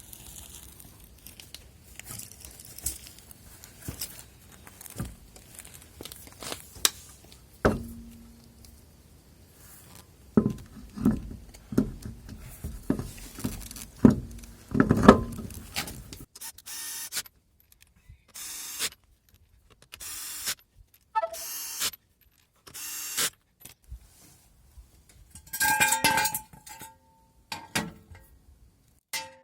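Hand tools working on metal car parts: a run of clinks, knocks and scraping. The knocks come thickest about halfway through, and in the second half they turn into short separate bursts with quiet gaps between.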